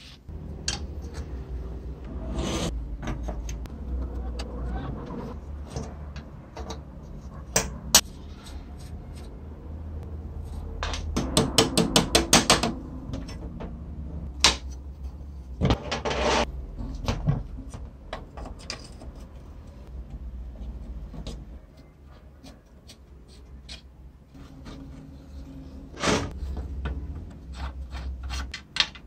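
Rusty bolts, nuts and washers being removed by hand from a steel base plate: scattered metal clinks, knocks and scrapes, with a quick run of clicks about halfway through and a low steady hum underneath.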